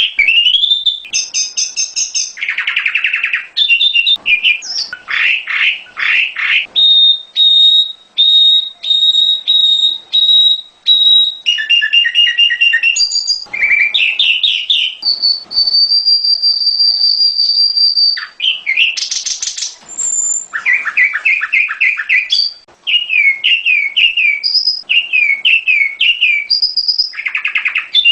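Prenjak gunung (mountain prinia) singing continuously in varied phrases. Runs of sharp repeated chirps alternate with long, steady, high thin whistles and quick descending note series, with almost no pause between phrases.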